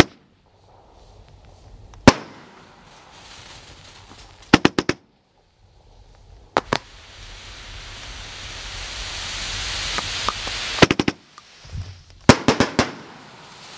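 High Def consumer fireworks cake firing: sharp bangs of bursting shells, some single and some in quick clusters of three to five. Between the bangs, a hiss builds for a few seconds before a cluster of cracks.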